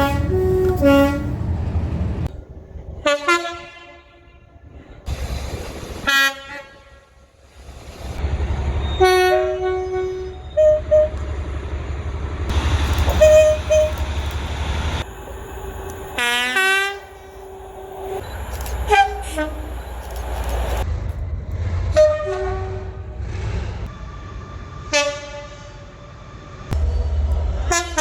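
Train horns sounding blast after blast from one train after another, some as two-tone horns alternating between two notes, over the low rumble of the trains running. Around the middle one horn drops in pitch as its train passes.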